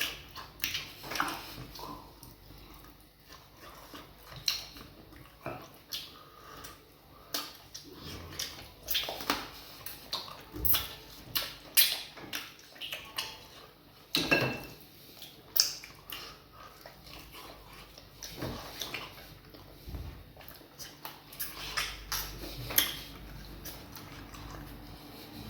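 Close-up mouth noises of eating fufu with vegetable soup: irregular wet chewing, lip smacks and sucking sounds, with occasional clinks of dishes.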